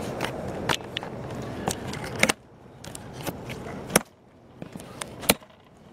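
Cardboard engine box being handled to open it: a handful of sharp clicks and knocks over rustling, which drops away about two seconds in.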